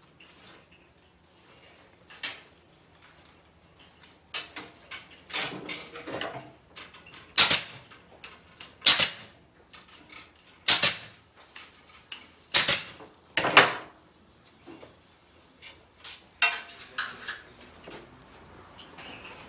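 Kamsin K-SC7C 15-gauge pneumatic C-ring gun firing C-rings to clinch chicken wire together: about five sharp air-driven snaps, a second or two apart, in the middle of the stretch. Softer metallic clinks and rustles of the wire mesh being handled come between and after them.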